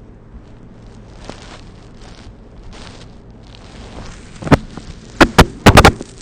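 A sleeper's faint, noisy breaths over a steady low hum, then about a dozen seconds' worth of quiet broken by a quick cluster of about six loud, sharp cracks in the last two seconds.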